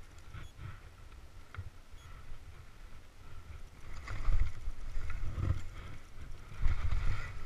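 Skis swishing and sliding through deep powder snow in a run of turns, louder from about four seconds in, with wind rumbling on the microphone.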